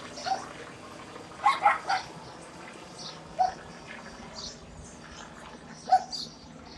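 A dog barking about six times in short sharp barks, three in quick succession about a second and a half in, over a faint steady low hum from a helicopter flying over.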